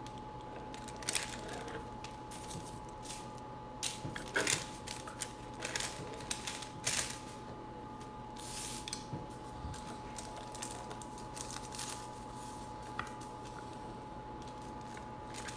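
Intermittent short scraping and rustling as a small pizza cutter wheel trims the edges of thin rolled cracker dough on parchment paper and the dough scraps are peeled away.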